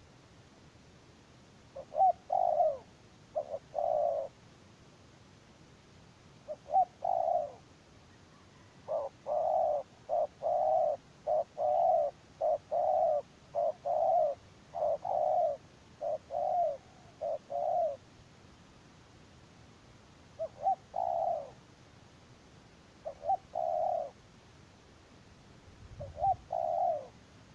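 Spotted doves cooing in repeated phrases, in short clusters with a longer run of about a dozen coos in the middle. A faint low rumble comes near the end.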